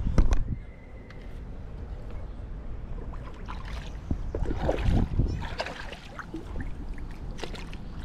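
A hooked smallmouth bass splashing at the water's surface in several short bursts as it is drawn in and landed by hand.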